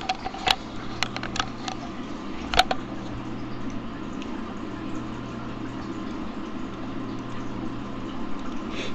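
A man snoring in his sleep, with a few sharp clicks in the first three seconds.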